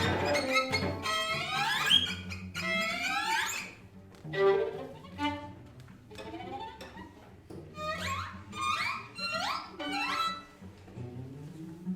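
String quartet playing contemporary classical music: repeated rising glissando slides over low held notes. It is loud for the first few seconds, then quieter, with another run of rising slides later on.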